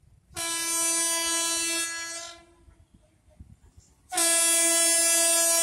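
A train's locomotive horn sounds two steady blasts. The first lasts about two seconds. After a pause the second starts about four seconds in. They are the warning for the level crossing as the train approaches.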